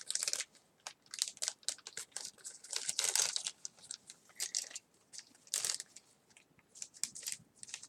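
Plastic packaging crinkling and tearing in irregular bursts as small vinyl figure pieces are unwrapped.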